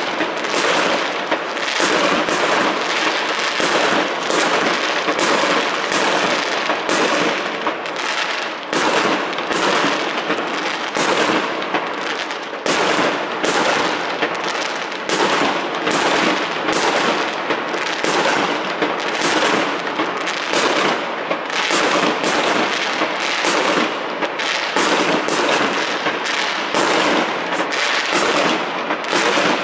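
Aerial fireworks going off without a break: a dense run of bangs, roughly one or two a second, over steady crackling.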